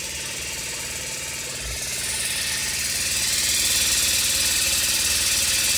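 Methanol spray nozzle misting with a hiss that builds about two seconds in and then holds steady, over a steady low mechanical hum.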